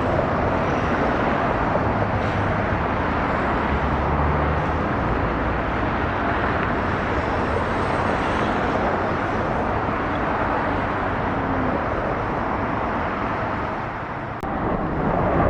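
Steady rushing rumble of jet airliner engines at the airport, with a low hum under it in the first few seconds.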